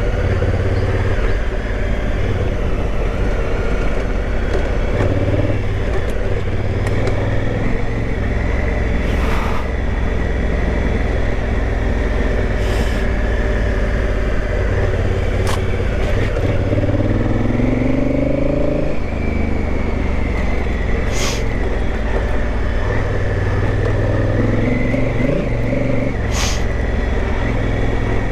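Big adventure motorcycle's engine running on a dirt trail, its pitch rising and falling with the throttle, with a clear climb in revs about two-thirds of the way through. A few sharp ticks sound over it.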